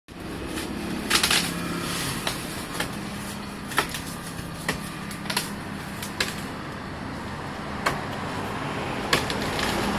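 A steady low mechanical hum, like an engine running, with irregular sharp knocks and clicks over it, the loudest about a second in.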